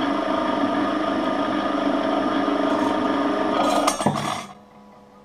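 Homemade motorized sheet-metal slip rolls running with a steady hum from their electric motor and gear-and-chain drive while a thin stainless-steel sheet is rolled flat. About four seconds in there is a brief rattle, and then the machine stops.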